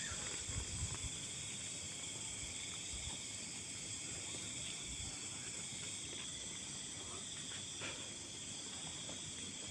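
Steady high-pitched chorus of night insects such as crickets, with a few faint knocks.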